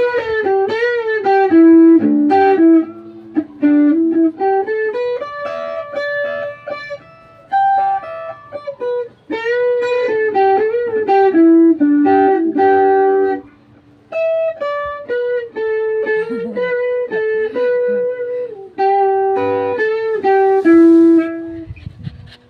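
Background music: a plucked guitar melody with bending notes, in phrases with short pauses.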